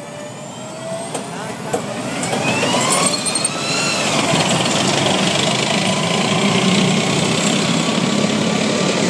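M1A1 Abrams tank's gas turbine engine whining as the tank drives past on its tracks. The sound grows louder from about two seconds in, and the whine rises in pitch, then falls away.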